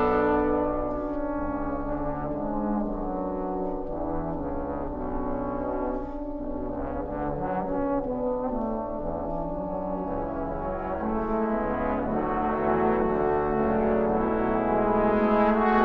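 Trombone choir playing slow, held chords that move from one to the next, swelling louder near the end.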